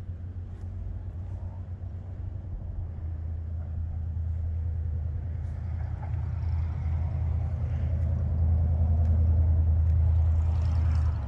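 Steady low rumble that builds louder over the last few seconds, then drops off suddenly near the end.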